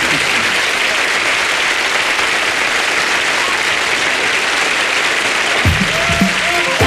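Audience applauding steadily. Music with a drum hit comes in near the end.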